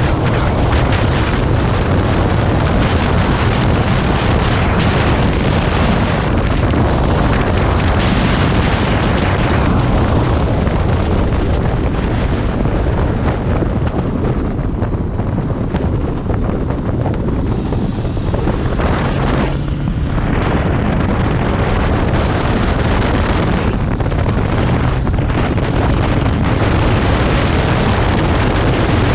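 Motorcycle riding at road speed, its engine humming under heavy wind buffeting on the microphone; the wind noise eases for a few seconds around the middle.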